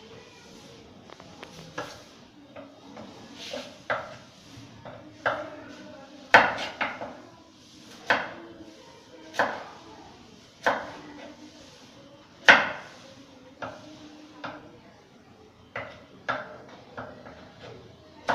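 Kitchen knife cutting a vegetable into julienne strips, the blade knocking on the cutting board in irregular strokes about once a second.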